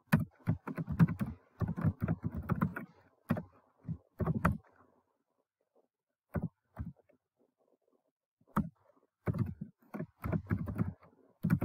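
Typing on a computer keyboard in runs of keystrokes. It falls almost silent for a few seconds midway apart from a couple of single clicks, then resumes near the end.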